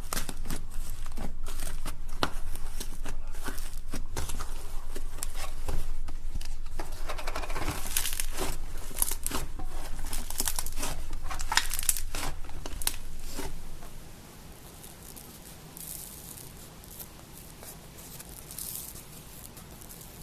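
Slime being worked by hand, with dense irregular crackling and popping clicks. It stops about fourteen seconds in, leaving only a few faint handling sounds.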